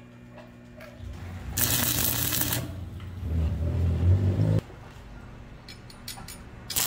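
Stick (arc) welding a steel spring to a bar: a burst of about a second of crackling electrode arc. This is followed by a low hum that cuts off suddenly.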